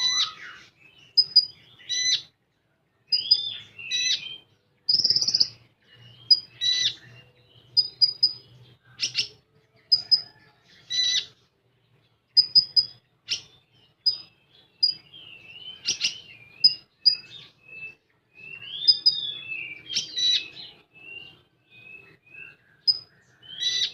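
Konin songbird singing: quick runs of short, high chips broken by sharp twittering phrases and curving whistled slurs, with brief pauses between bursts.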